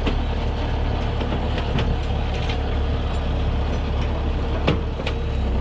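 Heavy diesel engine running steadily under load, with a few sharp knocks about two seconds in and a pair near the end.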